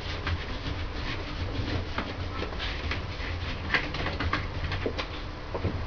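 Crinkling and small irregular clicks of a clear plastic sleeve being handled, over a steady low room hum.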